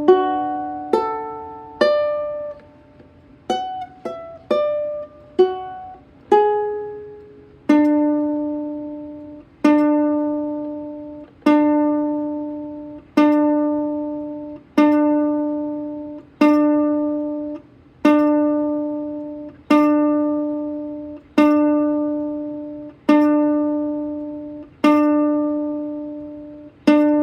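Instrumental ending on a plucked string instrument: a short run of different notes, then from about eight seconds in a single note plucked over and over, about once every 1.7 seconds, each left to ring and fade.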